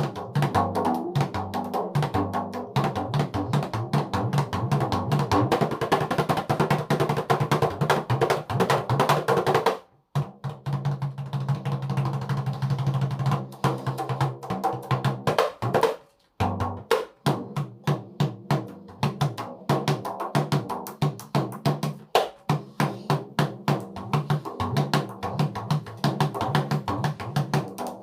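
Dikir barat rebana frame drums with pauh-wood shells, hand-struck in a fast, dense rhythm. It stops briefly about ten seconds in, and again about sixteen seconds in. Between the two stops there are fewer strokes and a deeper ring sustains.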